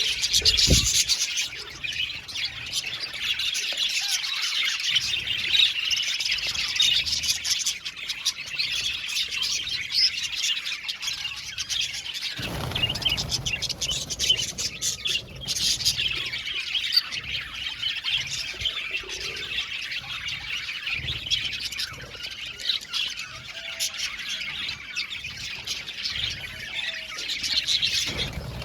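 A colony of budgerigars chirping and chattering together, many birds calling over one another without a break. A brief low thump sounds near the start.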